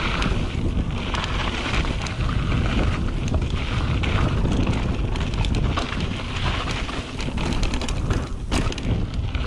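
Wind buffeting the microphone over the steady rumble of mountain bike tyres on a dirt trail, with frequent small clicks and rattles from the bike over rough ground.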